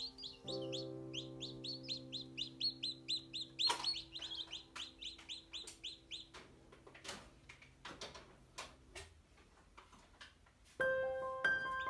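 Newly hatched chicks peeping in quick falling chirps, about four a second, over soft background music. The peeping stops about four seconds in and gives way to scattered sharp clicks and taps. A chiming melody starts near the end.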